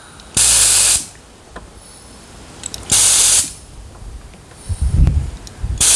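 Short blasts of compressed air from a vortex air cleaning tool, three bursts of about half a second each, a few seconds apart, as the compressor's regulator is set toward 90 PSI. A few low knocks and a faint rumble between the blasts.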